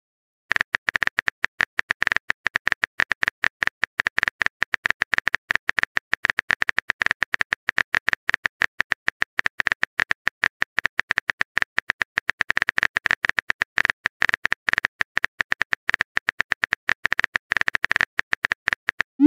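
Phone keyboard typing clicks: a rapid, irregular run of short taps starting about half a second in, as a message is typed out.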